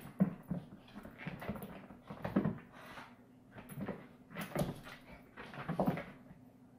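An Italian greyhound and a cat play-wrestling on a rug over a wooden floor: irregular short bursts of scuffling and paw thumps with short noises from the dog, about one burst a second.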